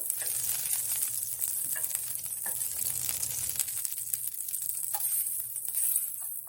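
Chicken thigh sizzling in a frying pan: it is being pan-fried in a little oil rather than deep-fried. A steady sizzle runs throughout, flecked with small crackles.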